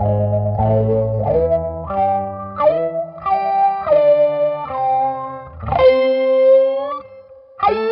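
Electric guitar played through an Electro-Harmonix Q-Tron Plus envelope filter with an octave pedal in its effects loop: a run of chords, each with a filter sweep bending its attack, and a longer held chord that fades out near the end before one more is struck.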